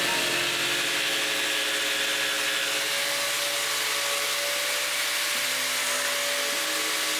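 Scroll saw cutting plywood, a steady machine run with blade noise, under background music.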